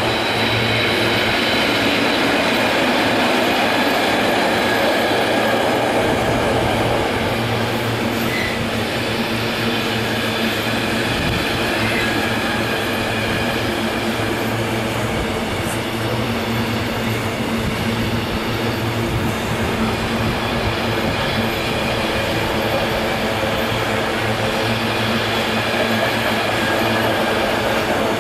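Loaded container flat wagons of an intermodal freight train rolling past at speed: a steady, loud rail rumble with wheel clatter and held droning tones, easing off slightly at the very end as the last wagon goes by.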